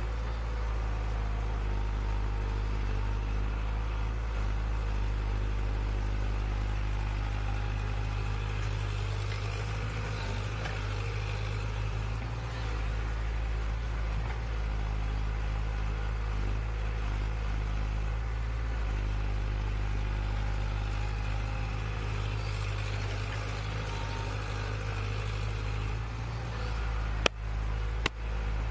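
An engine running steadily at a constant speed, with two sharp clicks near the end.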